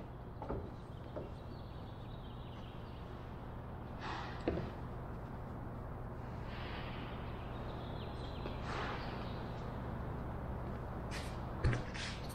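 A person climbing out of a plywood aircraft fuselage: a few light knocks and brief rustling shuffles, the sharpest knocks near the end, over a steady low workshop hum.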